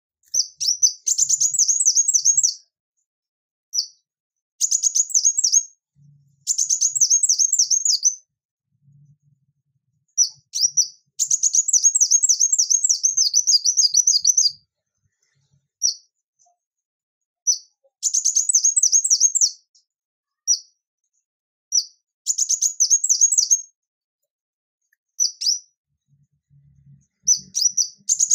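Male ruby-cheeked sunbird singing: high-pitched phrases of rapid repeated notes, each lasting one to three seconds, with short pauses and single sharp notes between them.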